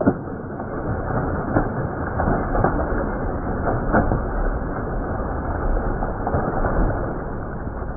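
Hooked tarpon leaping and thrashing at the surface: heavy, irregular splashing of water, starting with a sharp smack as the fish breaks the surface. The sound is dull and muffled, with no treble.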